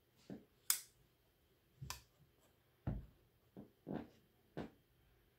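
Two Sun TS59 titanium frame-lock folding knife being worked by hand: a string of about eight short clicks and knocks as the blade swings and the handle is handled. The sharpest, brightest click comes under a second in.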